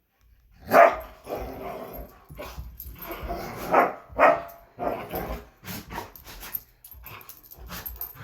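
Two puppies play-fighting, giving short barks and yips with sneezes, in irregular bursts; dogs sneeze like this as a play signal.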